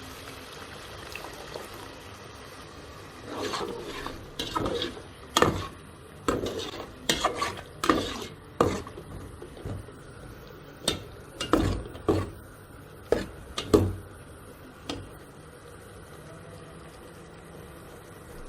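A metal spoon stirring and scraping in a cooking pot: a run of clinks and scrapes over about ten seconds that then stops, over a steady low hiss.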